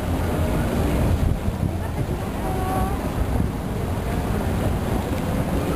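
Low, steady rumble of a passing riverboat's engine across the water, mixed with wind buffeting the microphone.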